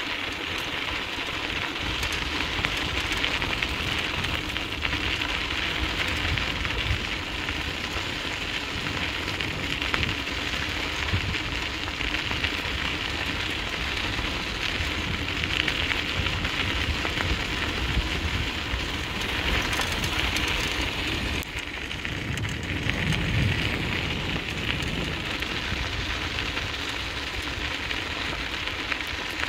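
Steady gravelly rolling noise of a dryland dog rig's wheels running over a dirt trail as a two-dog team pulls it, with uneven low rumbling underneath.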